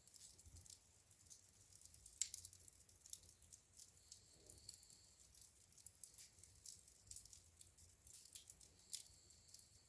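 Wood fire burning in a fireplace: faint, irregular crackles and pops, with one sharper pop about two seconds in and another near the end.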